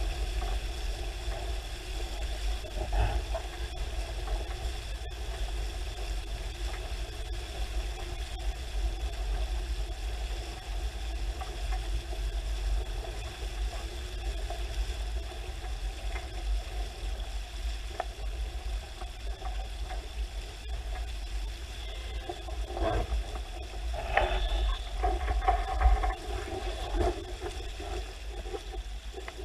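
Hurricane 5.9 Sport sailing catamaran under way: water rushing past the hulls, with a steady low wind rumble on the camera microphone. The noise grows louder and more uneven for a few seconds near the end.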